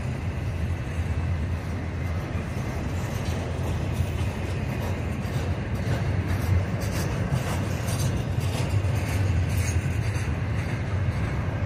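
Double-stack intermodal freight train rolling past: a steady low rumble of steel wheels on the rails, with scattered light clicks and rattles from the passing well cars.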